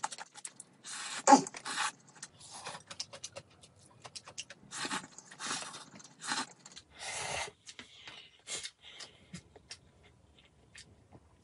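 Close-up eating sounds: instant ramen noodles slurped in a string of short noisy sucks with chewing between, and light clicks of chopsticks on a plastic tray. The slurps stop over the last few seconds.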